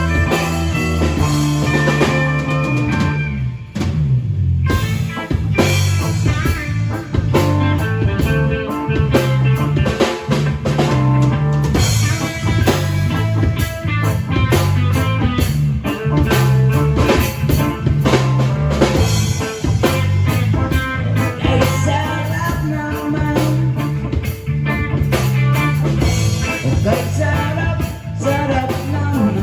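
Live band playing rock music on drum kit, guitars and bass, with a short drop in the music about four seconds in.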